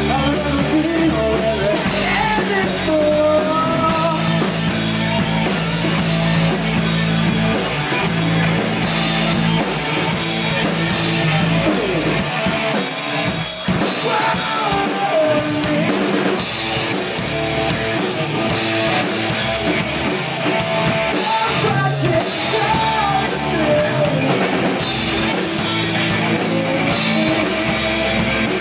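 Rock band playing a song: a lead singer over electric guitars, bass and a drum kit.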